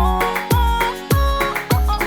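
Upbeat instrumental music with a steady beat: a deep kick drum whose pitch drops quickly, hitting a bit under twice a second, under a bright keyboard melody.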